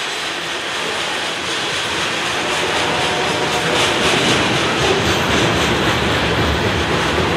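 A grain train's covered hopper cars rolling past: a steady rumble and rattle of steel wheels on rail, with clicking of wheels over the rail joints, growing a little louder toward the end.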